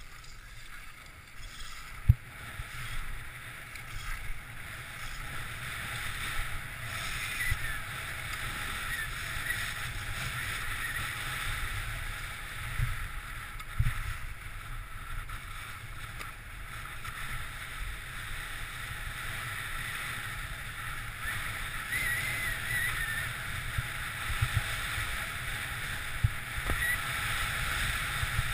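Skis sliding and scraping over packed, groomed snow: a steady hiss, with wind rumbling on the microphone. A sharp knock comes about two seconds in, with a few smaller ones later.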